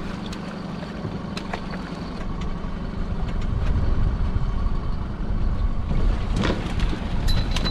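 Boat's outboard motor idling with a steady low rumble that grows louder partway through, while a crab pot knocks and clatters against the boat's side near the end as it is hauled up over the rail.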